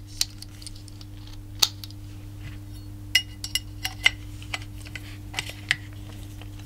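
Sharp metal clicks and short clinks as the parts of a field-stripped Laugo Arms Alien pistol are handled and fitted together, over a steady low hum.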